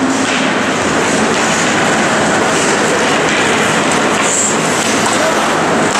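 Background music stops right at the start, leaving steady, dense ice-rink noise: skate blades scraping and carving on the ice during hockey play.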